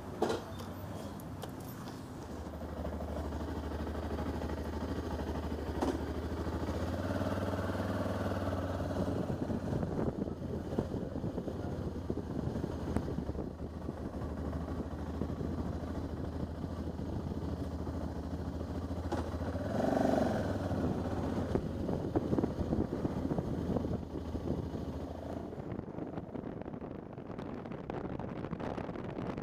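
Motorcycle engine running steadily at low speed as the bike pulls away and rides off, briefly louder about twenty seconds in.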